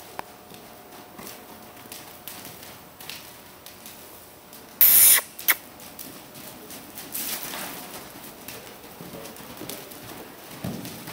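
Young quarter horses loping and trotting loose on dirt arena footing: a scatter of dull hoofbeats, with a loud short rush of noise about five seconds in and a second, shorter one just after.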